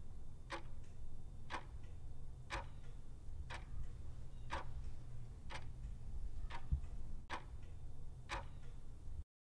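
Clock ticking about once a second, used as a quiz countdown-timer sound effect, over a low steady hum; it cuts off abruptly near the end.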